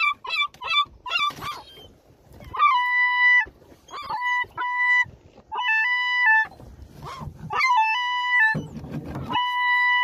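Herring gull calls pitch-corrected by autotune into sung notes. A run of quick laughing calls in the first second gives way to a series of long, flat held notes that step between a few fixed pitches.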